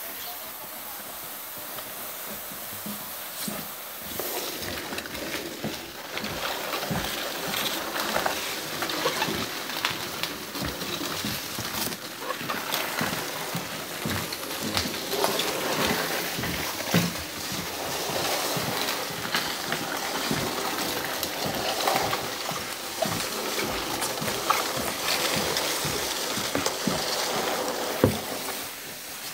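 Flat cardboard sheet scraping and rustling as it is dragged across carpet and a vinyl floor with a cat riding on it. The rough noise grows louder about four seconds in, and a few sharp knocks stand out near the end.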